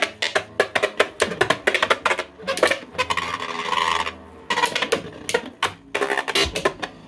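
3D-printed Beyblade spinning tops clattering and clashing in a stadium: a rapid run of sharp plastic clacks and knocks, with a denser rasping whir about three to four seconds in.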